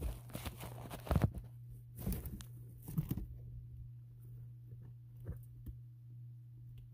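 Close rustling and crunching of wood-shaving bedding as guinea pigs move through it, in several bursts over the first three seconds, then quieter with a few faint ticks. A steady low hum runs underneath.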